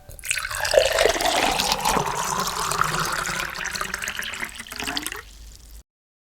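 Sound effect of running, pouring water, like a tap running into a sink, lasting about five and a half seconds and cutting off abruptly.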